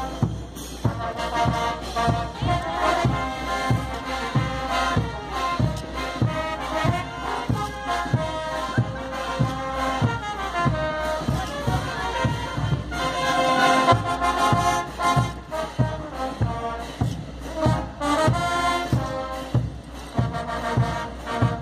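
Live brass band playing dance music, with horns over a steady drum beat.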